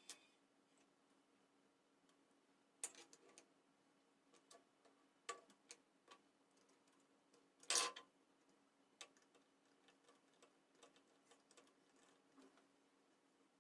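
Scattered small clicks and taps of hard parts being handled, irregular and faint, with a louder short cluster of clicks about eight seconds in, over a low steady hum.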